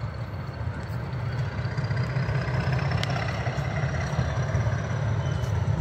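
Metre-gauge diesel locomotive approaching, its engine a steady low rumble that grows gradually louder. A faint high whine rises slowly in pitch above it, and there is a single sharp click about three seconds in.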